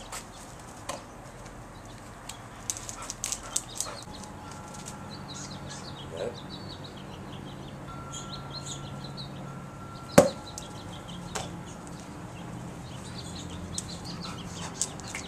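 Ball play with a Weimaraner: sharp smacks of the ball being bounced and snapped up, one at the start and a louder one about ten seconds later, with a few lighter clicks between. Small birds chirp faintly and a steady low hum sets in a few seconds in.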